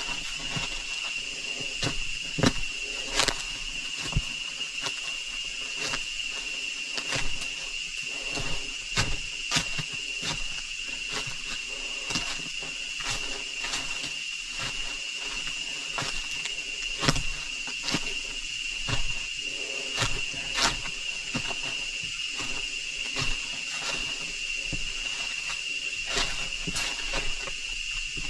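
Steady high-pitched drone of rainforest insects, with irregular footsteps knocking and scuffing on the stones of a dry riverbed.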